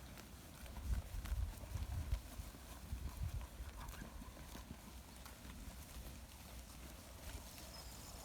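Horse hooves clip-clopping: a run of dull, irregular thuds, heaviest from about one to three and a half seconds in.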